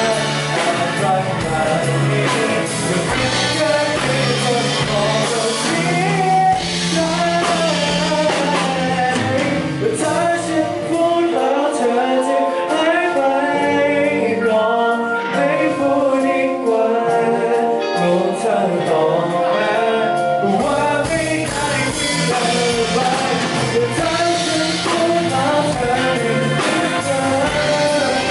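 A singer performing a song live with band accompaniment. The bass drops out about ten seconds in and comes back about ten seconds later.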